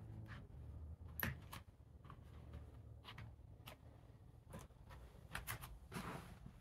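Faint footsteps and scattered light knocks on a bare wooden floor, irregular and about one every half second to a second, with a longer scuff near the end.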